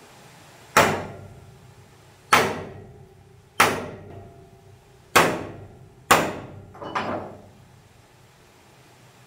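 Five hard hammer blows, roughly a second or so apart, each ringing briefly as it dies away, followed by a couple of lighter knocks about seven seconds in.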